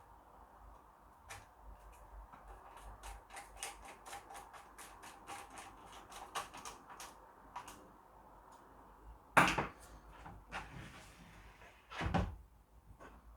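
A screw being driven by hand to fix the RISC PC's power supply into its metal case: a run of small quick clicks, then two louder knocks about two and a half seconds apart near the end.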